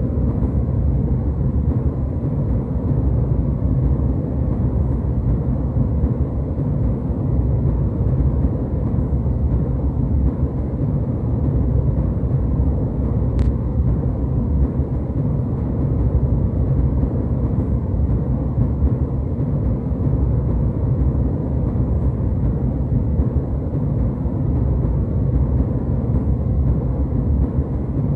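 Steady low rumble of a jet airliner's cabin in flight, even and unbroken, with one faint click about halfway through.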